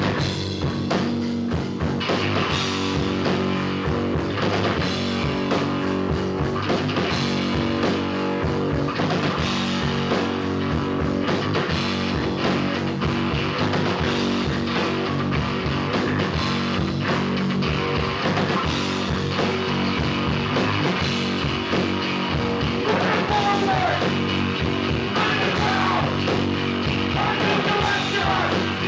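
Hardcore punk band playing live: distorted electric guitar, bass and drums, with vocals into a handheld microphone, clearest in the last few seconds.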